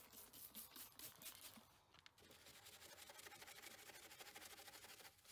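Faint scratchy scrubbing of a soft detailing brush working snow foam around a fuel filler flap and cap. It starts as uneven strokes and turns to quick, even strokes about two seconds in.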